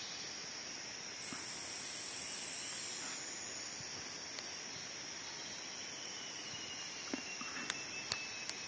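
Steady, shrill drone of a rainforest insect chorus, with a second, higher insect voice joining about a second in. A few light clicks near the end.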